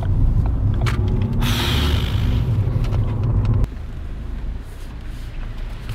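Car engine and road noise heard from inside the cabin while driving: a steady low rumble with a brief hiss about a second and a half in, dropping abruptly to a quieter rumble a little past halfway.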